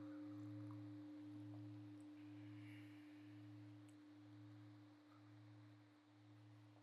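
Large bowl-shaped meditation bell ringing out and dying away: a steady low hum with two higher tones above it, the lowest hum wobbling slowly a little under twice a second as the ring gradually fades.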